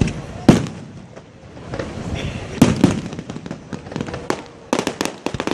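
Fireworks display: aerial shells bursting with sharp loud bangs, the biggest about half a second in and again past the two-second mark, then a quick run of crackling pops near the end.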